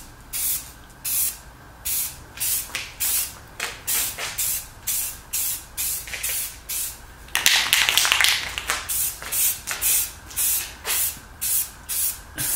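Aerosol can of flat gray primer spraying in many short hissing bursts, about two a second, with one longer spray of about a second around seven seconds in. The short strokes are misting a light gray highlight coat over a white primer.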